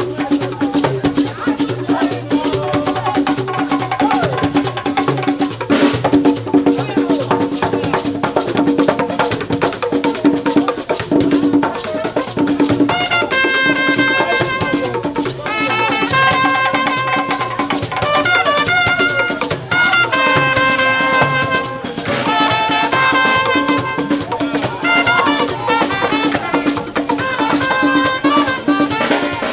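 Salsa-style band music driven by fast, dense conga and hand-percussion strokes, with a horn-like melody line entering about halfway through.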